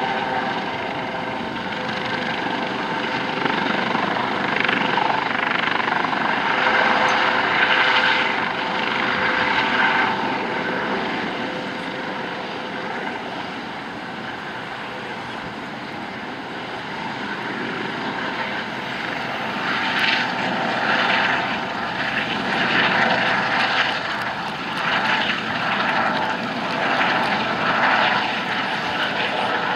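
US Coast Guard MH-65 Dolphin helicopter flying past low: the steady noise of its twin turbine engines and rotors, swelling and easing as it moves, loudest a few seconds in, dipping midway, then rising again in uneven swells over the last ten seconds.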